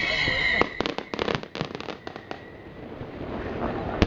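Fireworks going off: whistling shells that fade out, then a quick string of crackling pops, and one sharp bang near the end.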